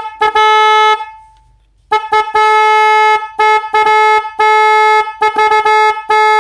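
RWB CS-A047 snail-type 12 V car horn honked repeatedly: a short blip and a blast of about a second, then after a pause a run of quick taps and half-second blasts. Loud, with a steady bright pitch.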